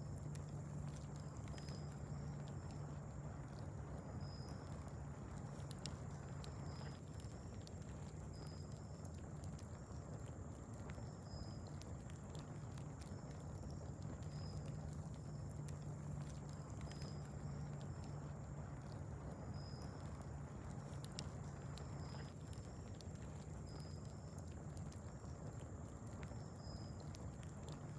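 Wood fire crackling with scattered sharp pops, over a steady low hum, while short high-pitched chirps repeat about once a second.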